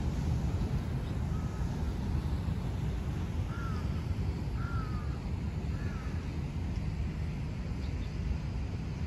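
Low rumble of wind buffeting the microphone, with a bird giving four short arched calls in the middle, the last three in quick succession.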